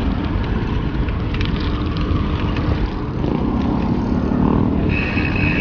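Road traffic noise heard while cycling: a steady rumble of motor vehicles with wind buffeting the microphone. A steady high-pitched tone starts near the end.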